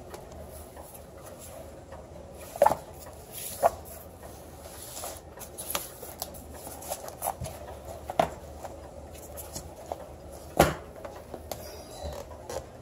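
Old paper magazines being handled and moved about on a wooden floor: soft rustling with a few sharp taps scattered through, four of them standing out.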